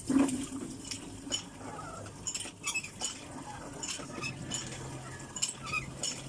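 Scattered light clicks and clinks of small hard objects, with a thump right at the start and a faint low steady hum from about four seconds in.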